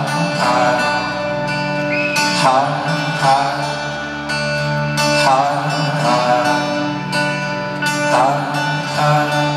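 Live folk-rock band music in a large arena: acoustic string instruments over steady held low notes, with a wavering pitched phrase returning every two to three seconds between the sung lines.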